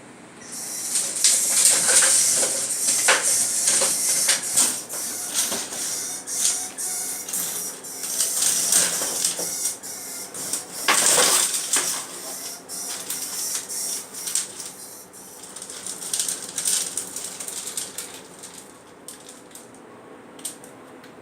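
Frantic scratching and scrabbling of an animal inside a disused chimney pipe: a dense, high, rustling scratch full of sharp clicks, loudest for the first dozen seconds, flaring once more, then fading to a few last clicks near the end. The uploader takes it for a mouse being attacked, then dragged away.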